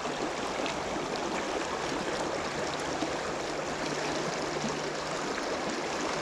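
River current rushing steadily over rocks in a run: a constant, even water noise.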